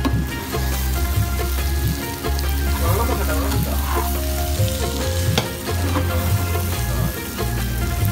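Beef pieces sizzling in hot oil in a frying pan while a spatula stirs and scrapes them, with a few short clicks of the spatula against the pan.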